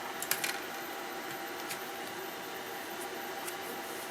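A few light clicks and taps of small parts being handled during reassembly: a quick cluster about half a second in, then a couple of faint ticks later, over a steady low background hiss.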